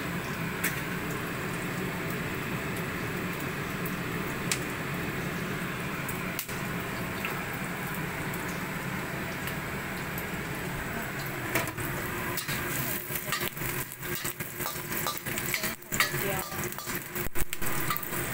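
Chopped garlic and dried shrimp sizzling steadily in oil in a wok. From a little over halfway through, a spatula stirs the wok, adding irregular scraping and clattering.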